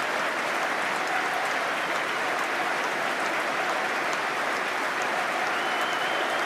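A full football stadium crowd applauding steadily: a minute's applause given as a tribute.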